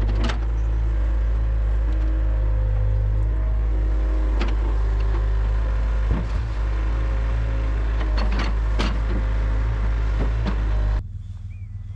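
A heavy engine runs steadily with a deep, even hum, broken by a few sharp knocks and clanks. The engine sound drops away sharply about eleven seconds in.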